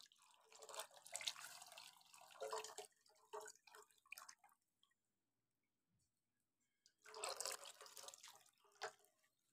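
Water poured from a steel bowl over raw chicken pieces, faintly splashing and dripping off the plate into the pan below, in two spells: one in the first four seconds and another about seven seconds in.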